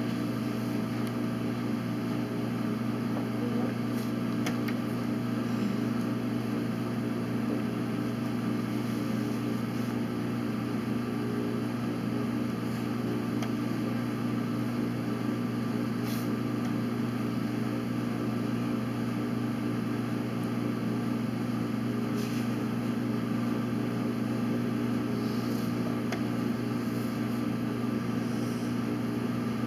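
Steady low room hum from machinery such as ventilation, with a few faint clicks of chess pieces being set down and the chess clock being pressed.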